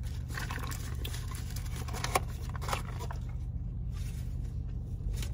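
Steady low hum inside a parked car, with scattered light clicks and rustles of paper food packaging being handled, one sharper click about two seconds in.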